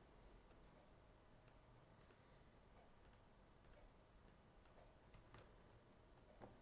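Faint computer mouse clicks, about a dozen scattered irregularly, over near silence.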